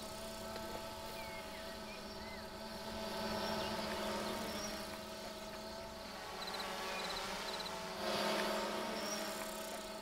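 Quadcopter drone's rotors hovering, a steady multi-toned hum that swells and fades a few times.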